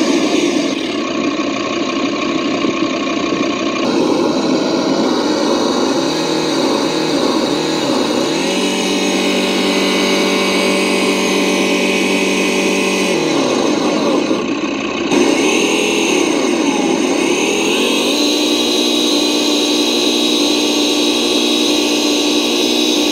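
An RC crawler's onboard sound module playing a simulated truck engine, its pitch rising and falling with the throttle as the crawler works through mud. It holds a steady pitch for a few seconds about a third of the way in and again near the end.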